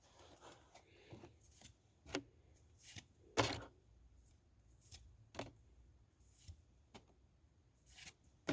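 Pokémon trading cards being handled after a booster pack is opened: scattered soft rustles and card slides, the loudest about three and a half seconds in.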